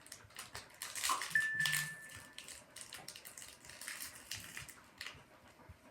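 Plastic toy wrapping being handled and pulled at, a run of short crinkles and scratchy crackles.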